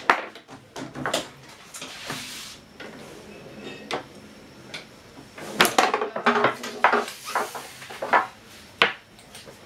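Foosball table in play: sharp clacks and knocks of the ball against the plastic players and the table walls, with the steel rods knocking, coming in irregular strikes and a quick cluster a little past halfway.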